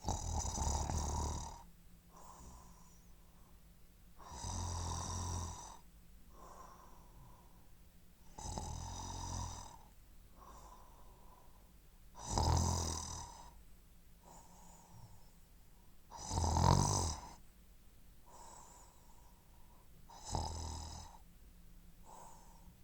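A person snoring loudly in a steady rhythm: six heavy snores about four seconds apart, each lasting a second or two, with a softer breath between each one.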